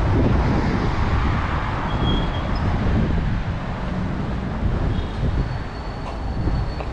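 Outdoor street noise: a steady low traffic rumble mixed with wind on the microphone, easing off a little toward the end.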